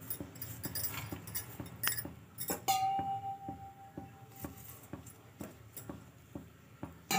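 Steel spoon spreading oil over a paratha on a tawa: soft scrapes and light taps, with one sharp metal clink about two and a half seconds in that rings on for over a second.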